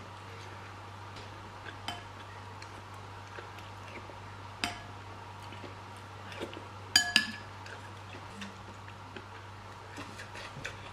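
Metal spoon clinking against dishes while eating: scattered light taps, a ringing clink near the middle, and two sharp ringing clinks close together about seven seconds in, over a steady low hum.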